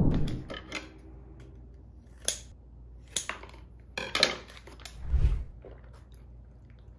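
Plastic juice pouches being handled, with scattered sharp clicks and crinkles and a dull thump about five seconds in. A loud burst of sound at the very start.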